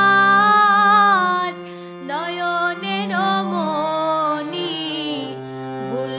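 Background music from a Bengali song: a long held note that wavers slightly in pitch for about a second and a half, then flowing melodic phrases over a steady low accompaniment.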